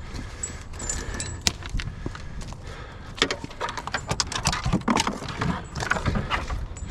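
Tools and gear clattering and knocking as they are shoved into a car's cargo area, with metal jingling and a run of knocks that get busier about halfway through.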